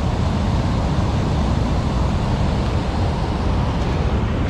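Steady rushing of water flowing through and below a river dam, loud and unbroken, with a heavy low rumble.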